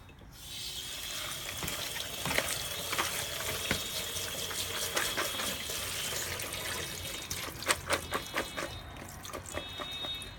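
Kitchen faucet running water over chopped lettuce in a strainer, with light knocks as the strainer is handled. The flow eases after about seven seconds, leaving a few sharp knocks.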